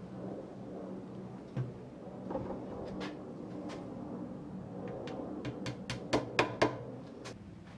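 Scattered sharp knocks and taps of wood being handled at a woodworking bench, ending in a quick run of three louder knocks about six seconds in.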